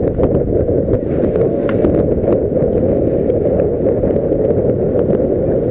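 Wind buffeting the microphone: a loud, steady low rumble with a few faint ticks above it.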